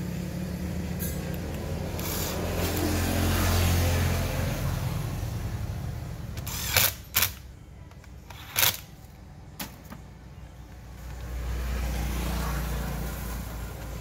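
A low mechanical rumble that swells and fades twice, with a few sharp clicks in the quieter stretch between the swells.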